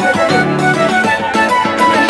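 Instrumental background music with a steady rhythmic melody.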